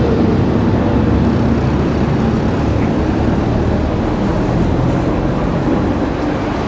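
Steady low rumble of motor traffic in the street, an engine running close by.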